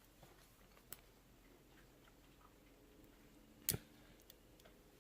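Mostly near silence with a faint click about a second in and one sharp metal click about three and a half seconds in, from small pins and tools being handled while a pin tumbler lock is taken apart.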